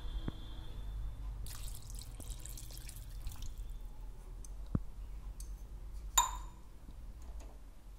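Chicken curry with freshly added water bubbling and dripping in a pan on a gas stove, with a spell of hissing from about one and a half to three and a half seconds in. A sharp clink of a utensil against the pan comes about six seconds in.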